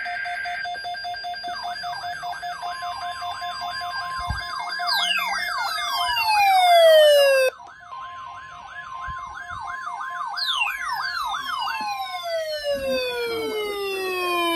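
Electronic emergency alert tones ahead of a weather radio tornado watch: steady alert tones with a siren-like warbling sweep over them, and long falling whistles twice, about five and ten seconds in. The sound cuts off briefly about halfway.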